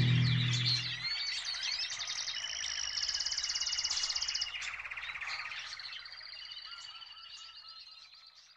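Last note of distorted rock guitar music cutting off about a second in, leaving birdsong of chirps and fast trills that fades out.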